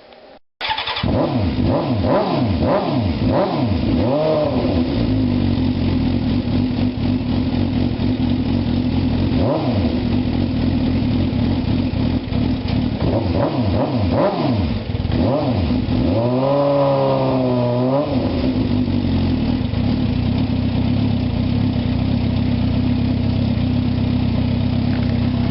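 2004 Suzuki GSX-R600's inline-four engine running cold, blipped with several quick throttle revs and one longer, higher rev about two-thirds through, then settling to a steady idle.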